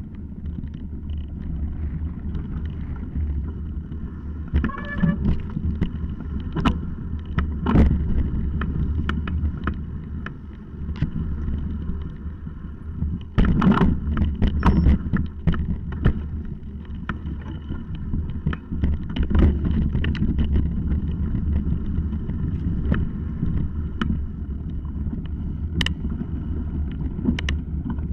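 Mountain bike descending a rocky dirt trail: a steady low rumble of knobby tyres rolling over gravel, with frequent sharp rattles and knocks from the bike over rocks and roots. The knocks are heaviest about halfway through, and there is a brief high squeal about five seconds in.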